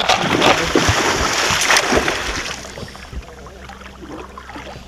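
Water splashing and churning at the side of the boat as a musky thrashes around a large landing net being worked through the water, loudest for the first two seconds or so, then dying down.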